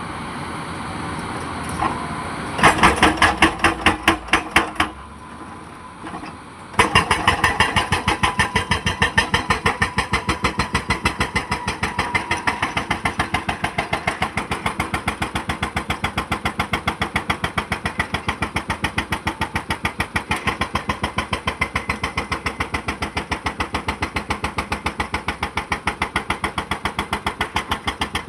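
Hydraulic breaker on a JCB JS220LC excavator hammering in rapid, even blows, several a second, over the excavator's running diesel engine. There is a short run of blows about three seconds in, a brief pause, then continuous hammering from about seven seconds on.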